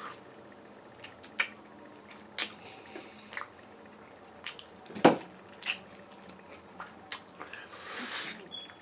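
Close-up mouth sounds of a person eating a chicken wing: scattered wet smacks and lip clicks while chewing, the loudest about five seconds in.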